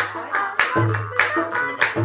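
Live Mising folk music: a dhol barrel drum keeps a steady beat of sharp slaps with a deep ringing stroke a little over a second apart, under the buzzing twang of a gogona, the bamboo jaw harp.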